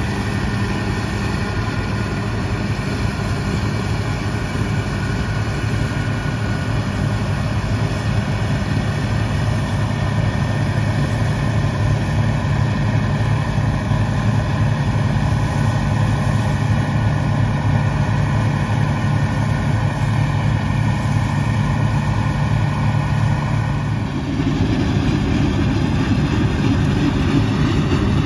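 Bizon Z056 Super combine harvester's SW-400 six-cylinder diesel engine running steadily under load while the machine harvests grain. The drone shifts to a fuller, lower hum near the end.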